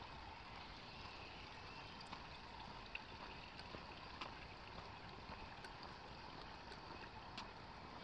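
Faint, steady trickle of a small stream of running water, with a few light ticks.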